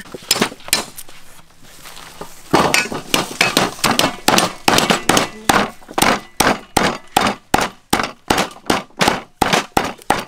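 Wooden pestle pounding a bundle of lemongrass stalks on a wooden chopping board: a few scattered knocks, then from about two and a half seconds in a fast, even series of heavy blows, about three a second.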